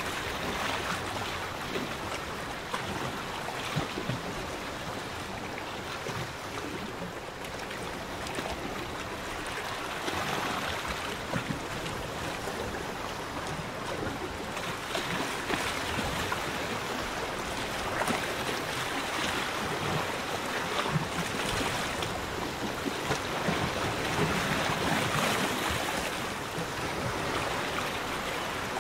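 Lagoon water lapping and splashing in small waves close by, a steady watery wash that swells in short surges every few seconds and grows a little louder in the second half.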